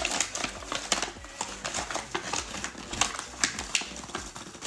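Stiff white wrapping paper rustling and crinkling as it is unfolded and pulled back from a gift box, a dense run of small crackles.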